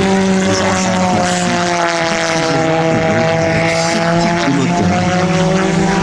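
Model aircraft pulsejet running on the ground, a loud continuous drone holding a steady pitch.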